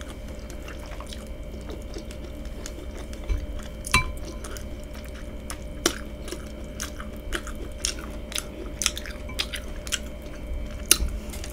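Close-up mouth sounds of chewing a mouthful of corn on the cob, with many small wet clicks and smacks, over a faint steady hum. A light clink of a spoon against a glass bowl comes about four seconds in.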